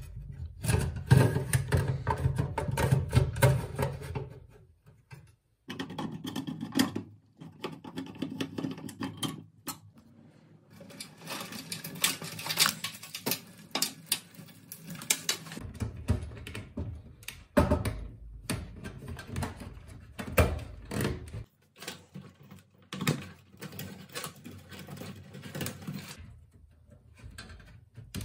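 Handling noise inside a steel desktop PC case: irregular clicks, scrapes and rattles as a hard drive slides into the metal drive cage and power and data cables are pushed into place and plugged in.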